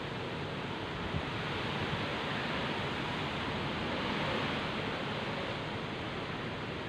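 Heavy rain pouring down in strong wind: a steady, dense hiss that swells slightly a little past the middle.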